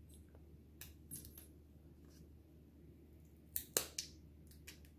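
Faint scattered crackles and snaps of a paper mold being peeled by hand off a freshly set wax candle, with small bits of wax breaking away. The loudest snaps come in a quick cluster about three and a half seconds in.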